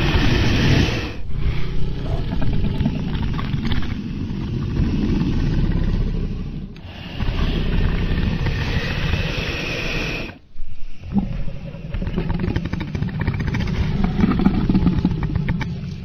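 Dragon sound effect: deep, rough roars that follow one another, each lasting several seconds, with short breaks about a second in, near seven seconds and near ten seconds.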